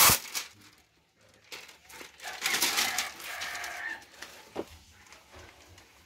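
Thin plastic window film crinkling and rustling in the hands as it is peeled and handled, with a sharp click at the start and another short click near the end.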